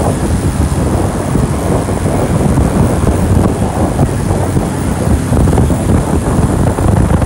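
Wind buffeting the microphone of a moving motorcycle, mixed with the rough rush of the bike and road noise. Loud and steady throughout.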